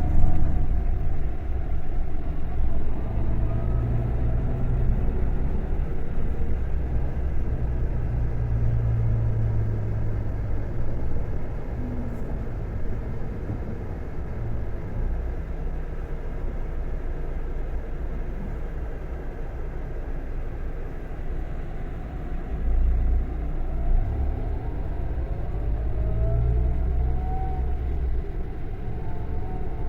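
Scania K400 coach's diesel engine running with a steady deep rumble. Rising tones, as of the engine pulling up through its revs, come near the start and again a few seconds before the end.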